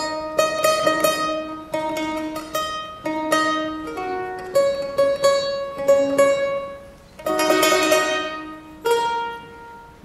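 Charango played solo: strummed chords that ring and die away, with a run of single plucked melody notes in the middle and a fresh strummed chord about seven seconds in.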